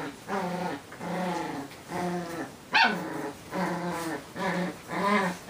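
Dogs in a litter pen vocalizing: a run of about eight short, low, moaning growl-whines, each about half a second and arching in pitch, with a sharp high yelp about halfway through and another at the end.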